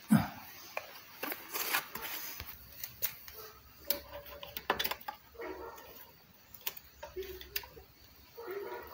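Plastic fuel bottles and caps being handled while two-stroke petrol mix is measured and poured: a sharp knock just after the start, then scattered clicks and taps.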